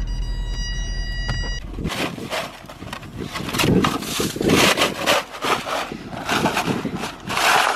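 Car stuck in snow: its engine runs steadily with a thin whine, then cuts off about a second and a half in. Irregular scraping and rustling noise follows.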